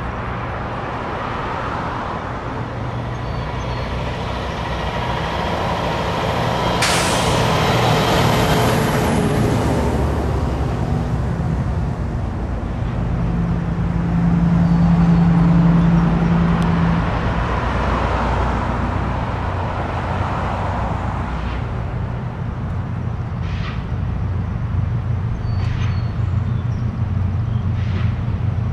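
Road traffic on a town street: vehicles driving past with engine and tyre noise. A brief loud hiss comes about seven seconds in, and a heavy engine's low hum swells near the middle.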